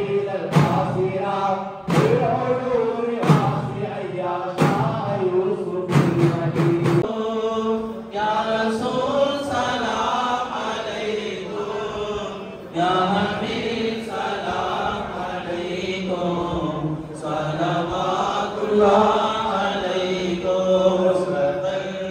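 A group of men chanting dhikr in unison while frame drums (daf) are struck together on a slow beat, a little over a second between strokes. About 7 s in, the drums stop and the group chanting carries on unaccompanied.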